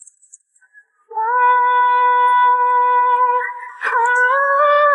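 Background pop song with a female vocal: after about a second of near quiet, the voice holds one long steady note, then moves up to a slightly higher held note near the end.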